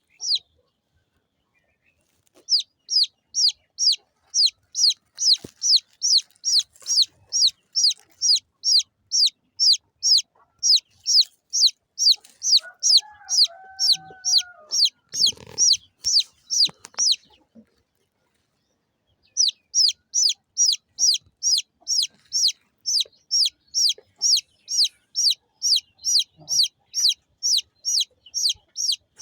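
A baby chick peeping: a steady run of high, short, downward-sliding chirps, about two and a half a second. The chirps start about two seconds in and stop for about two seconds past the middle before resuming. A short, lower call is heard once just before the pause.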